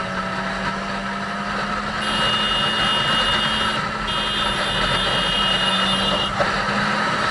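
Motorcycle engine running steadily at highway speed under heavy wind rush on the rider's helmet camera. A thin high whine sounds from about two seconds in, breaks off briefly, and stops shortly before the end.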